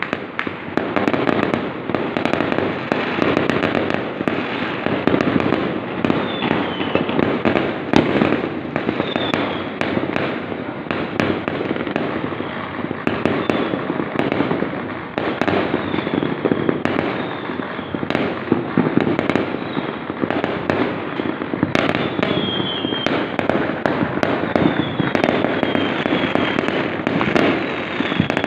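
Fireworks and firecrackers going off in a dense, continuous barrage of crackling bangs, with short falling whistles every few seconds.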